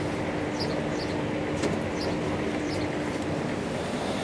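Hydraulic elevator machinery running with a steady hum that stops about three and a half seconds in, over a noisy background. A manual landing door is pulled open, with a single click a little after a second and a half and a few faint high squeaks.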